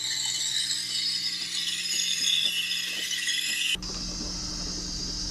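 Espresso machine frothing milk in a mug with its steam wand: a hiss with a few faint clicks, then, changing abruptly about three-quarters of the way through, a steady low hum.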